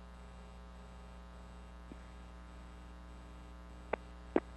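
Steady electrical hum with faint static on the broadcast audio feed. A few short clicks come through, two of them near the end.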